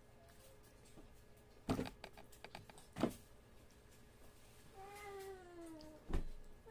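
A cat meowing once, a drawn-out call sliding slowly down in pitch near the end, after two sharp clicks or knocks and just before a dull thump.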